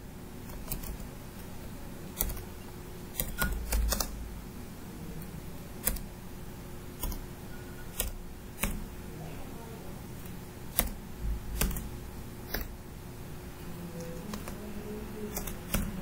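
Computer keyboard keys clicking as code is typed, in irregular single taps and short runs, over a faint steady hum.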